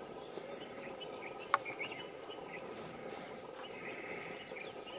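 Faint wild outdoor ambience: scattered short bird chirps over a steady faint hum, with a single sharp click about one and a half seconds in.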